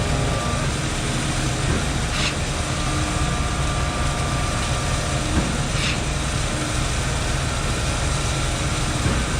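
Concrete pump truck running steadily under its engine while pumping, with a short hiss about every three and a half seconds.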